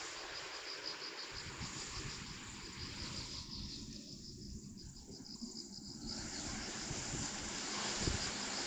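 Insects trilling steadily in a high, evenly pulsing chirr, over a low rumble of wind on the microphone.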